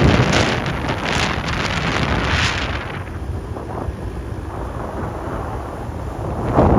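Wind buffeting the microphone of a rider on a moving motor scooter: a steady low rumble with louder gusts of rushing noise over the first three seconds and again near the end.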